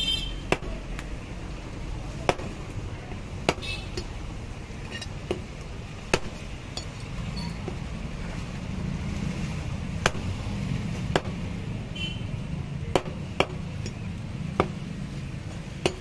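A large curved knife chopping parrot fish pieces on a wooden block: sharp, separate knocks, irregularly spaced, about one every second or two.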